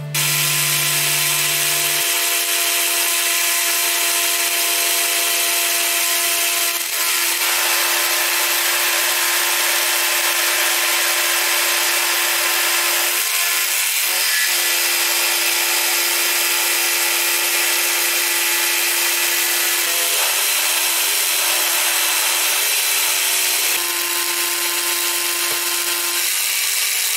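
Mill-drill machining aluminium plate with an end mill: a steady spindle and motor whine over the hiss of the cut, with brief dips about seven seconds in and again around fourteen seconds.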